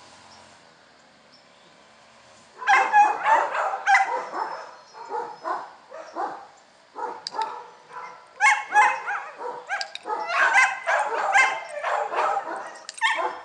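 A dog barking and whining in a rapid run of short, pitched calls that starts about two and a half seconds in after a quiet opening and keeps going.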